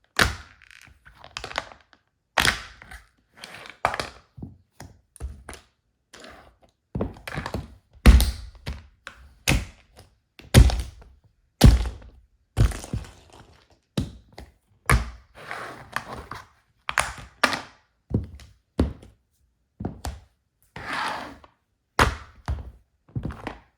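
Wedge-heeled shoes stomping on a plastic toy car: repeated heavy thuds, roughly one a second, with plastic cracking and crunching under the heels.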